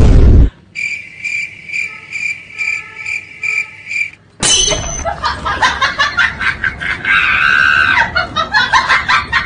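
A short loud hit, then a crickets sound effect chirping a little over twice a second, the comic cue for an awkward silence after a dumb remark. About four and a half seconds in, a loud, dense, rapidly fluttering sound cuts in and takes over.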